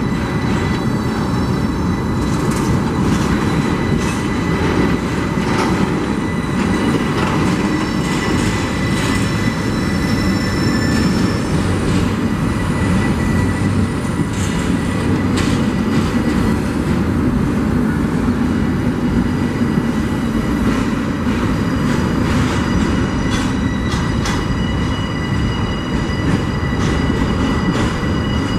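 Union Pacific double-stack container freight train rolling slowly past at close range. A steady heavy rumble of wheels on rail runs under thin, steady, high-pitched wheel squeal, with scattered clanks and clicks from the cars.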